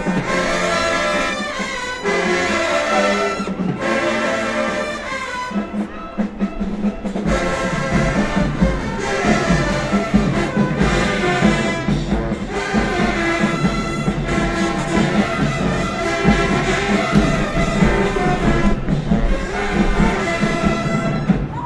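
High school marching band playing a brass-led tune in the stands, horns and low brass carrying the melody; the sound grows fuller in the bass from about seven seconds in and cuts off sharply at the end.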